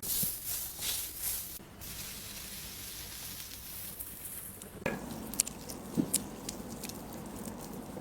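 Close-miked lip-care ASMR sounds: a fizzing, sizzle-like hiss starts abruptly and runs for nearly five seconds, then gives way to a softer rubbing texture with scattered sharp clicks.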